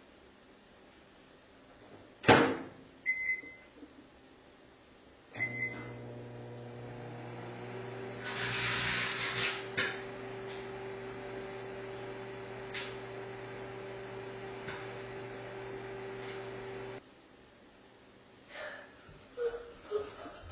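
A sharp bang about two seconds in, then two short keypad beeps, then a microwave oven running with a steady hum for about twelve seconds before it cuts off suddenly.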